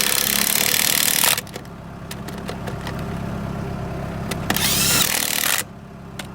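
Impact wrench running lug nuts onto a truck wheel's studs: a long burst of rapid hammering that stops a little over a second in, then a shorter burst with a spin-up whine about two-thirds of the way through, over a steady low hum.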